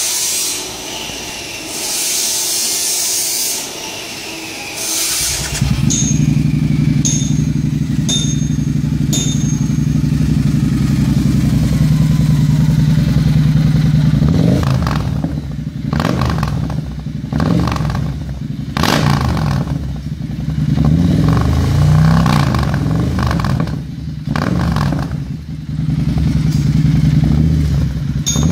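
Triumph Thruxton R's 1200 cc parallel-twin engine through a handmade custom exhaust, starting up about five seconds in and idling. From about halfway it is revved in repeated throttle blips, rising and falling in pitch.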